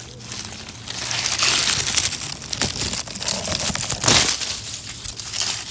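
Hands digging and raking through loose garden soil to find potatoes: a continuous crumbly rustling and scraping, with a louder scrape about four seconds in.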